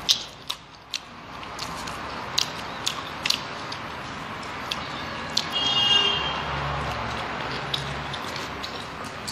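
Close-up eating sounds: wet chewing, lip smacks and sucking as braised meat is pulled off the bone, a run of irregular small clicks. A brief high squeal sounds about six seconds in.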